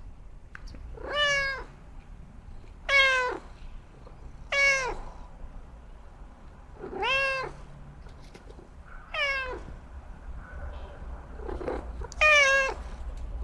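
Domestic cat meowing six times, about every two seconds. Each meow is short and rises then falls in pitch.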